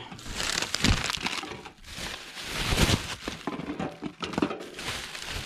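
Plastic carrier bag crinkling and rustling as rubbish is shaken out of it into a litter bin, with a few sharper knocks and crunches.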